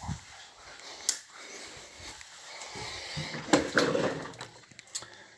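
Knocks and rustling as a fridge door is opened and things inside it are handled, with the loudest knocks a little past halfway.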